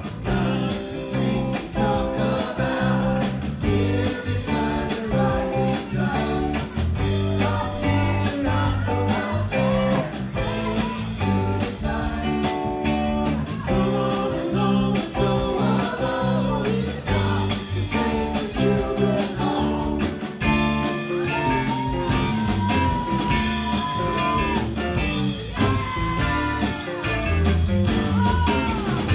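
Live rock band playing: electric guitars, electric bass, drums and keyboard, with a steady beat. A long, slightly bending lead line is held from about two-thirds of the way through.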